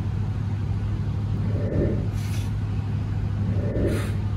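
A steady low hum throughout, with two short, breathy exhales about two seconds apart from a man straining through pull-ups on an outdoor bar.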